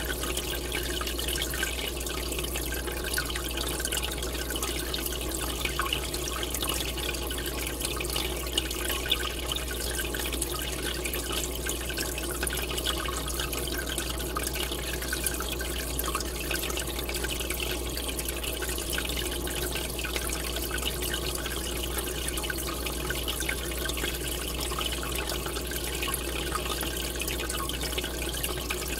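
Aquarium air bubbler: a steady stream of bubbles rising from an airline and breaking at the water surface, a continuous bubbling and splashing hiss with many tiny pops, over a steady low hum.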